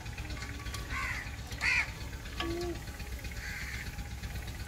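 A crow cawing a few times, the loudest call just under two seconds in.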